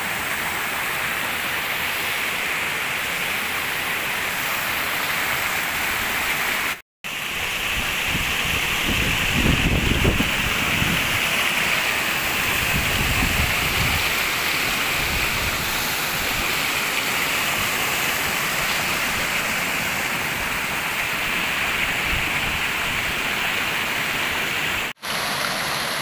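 Steady rush of a small waterfall and rapids pouring over rock ledges. A low rumble swells briefly about ten seconds in, and the sound cuts out abruptly for a moment twice, about seven seconds in and near the end.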